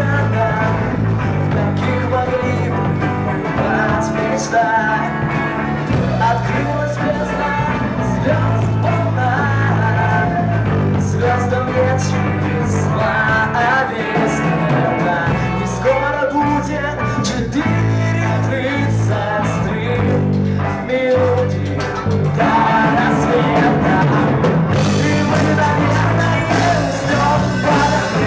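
A rock band playing live: singing over guitar, bass and drums, with a steady beat.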